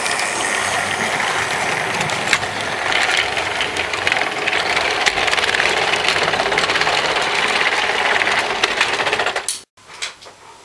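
Model train running past on the layout's track: a steady mechanical rattle of small wheels and mechanism, which stops abruptly about nine and a half seconds in, leaving a much quieter sound.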